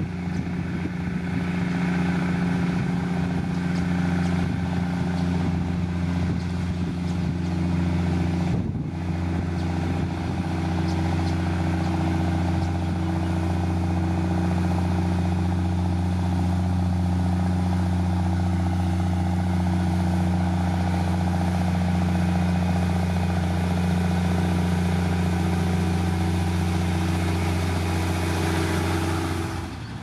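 Heavy diesel engine of road-construction machinery, a motor grader or road roller, running steadily at an even pitch, with a brief break about nine seconds in.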